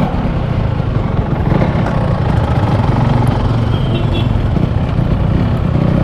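Yamaha RX-King's two-stroke single-cylinder engine running steadily while riding.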